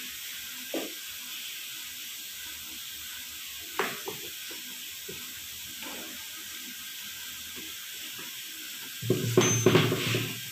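A vacuum pump being fitted by hand onto a diesel engine block: faint clicks and knocks of metal parts meeting, over a steady hiss. Near the end comes a louder stretch of handling noise as the pump is pushed into place.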